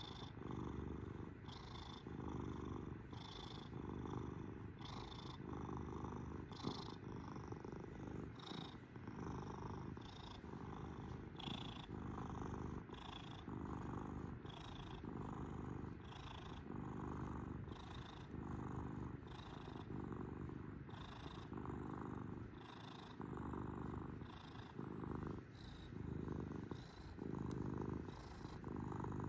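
Domestic cat purring steadily and close, the purr swelling and easing in a regular rhythm about once a second with its breathing in and out.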